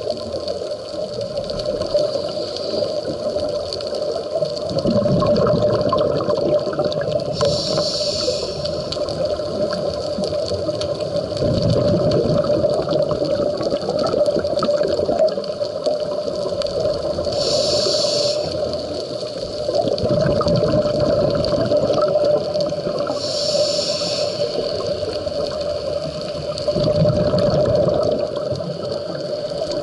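Scuba diver breathing through a regulator underwater: a short hiss on each inhalation alternating with a rumbling gush of exhaled bubbles, about four breaths, over a steady drone.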